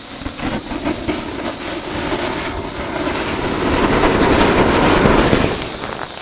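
Charcoal burning fiercely in liquid oxygen poured onto a kettle grill: a loud rushing fire noise full of crackles and pops. It builds for about four seconds, peaks, then falls away sharply near the end.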